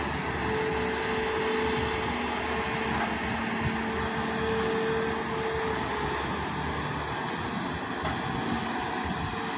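Hyundai hydraulic excavator's diesel engine running as the boom and bucket work, with a steady whine that fades out about six seconds in.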